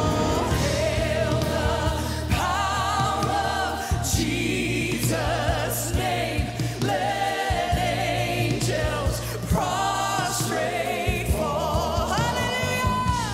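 Live gospel worship music: female singers with a choir sing held notes with vibrato over grand piano, bass and drum kit. A long high note swells near the end.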